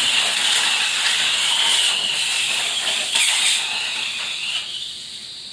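Tamiya Mini 4WD cars racing on a plastic track: the small electric motors whine at high pitch with a hissing rush of wheels and rollers along the track. The whine dies away about four and a half seconds in as the cars are lifted off the track.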